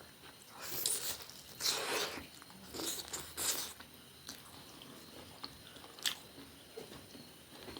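Close-miked eating: a few crunchy bites in the first few seconds, then quieter chewing with a few small clicks.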